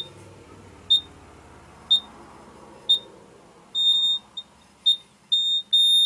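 TIF 4000A electronic sight glass beeping a single high tone about once a second, its signal for a solid liquid column with no bubbles. From about two-thirds of the way in the beeps turn longer and irregular and then run together into a near-continuous tone, its signal for bubbles.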